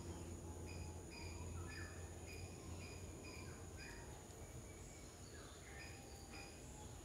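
Faint garden ambience: a steady high insect drone, a short call repeated about twice a second, and a few scattered bird chirps. A low hum underneath stops about three seconds in.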